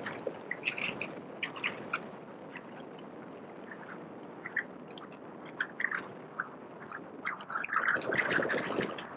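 Outdoor city street ambience: a steady hiss with scattered short, high chirps and clicks, growing louder near the end.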